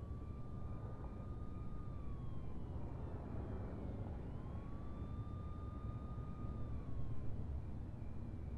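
A siren wailing, rising, holding and falling twice, over a low steady rumble.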